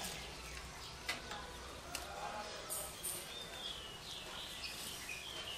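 A few faint, short metal clicks as the steering knuckle of a Suzuki Karimun Estilo's front suspension is handled and pulled free of the strut. Faint bird chirps are heard in the background.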